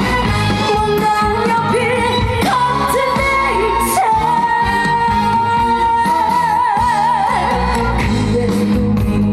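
A woman singing a Korean trot song live over a loud backing track, holding one long note that breaks into vibrato near the middle.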